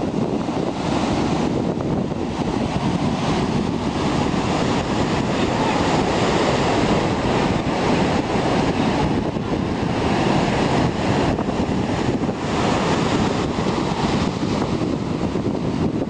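Ocean surf breaking and washing over a rocky shore, a continuous rush that swells and eases every few seconds as waves come in, with wind buffeting the microphone.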